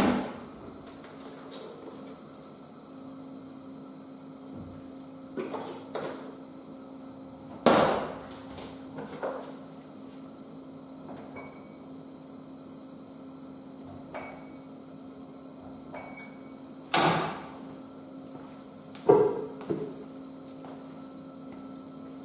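Electrolux W465H washing machine in operation: a steady low hum, broken by several sharp knocks or clunks. Three short, high electronic beeps come near the middle.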